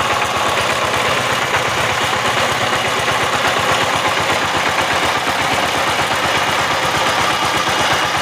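Power tiller's single-cylinder diesel engine running steadily with a fast, even pulsing beat, driving the repaired gearbox.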